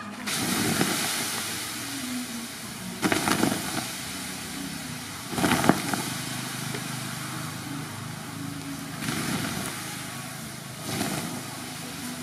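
Water splashed in pans and buckets onto a pile of smouldering wood, hissing and sizzling in about five surges as it turns to steam: quenching the burning wood into charcoal.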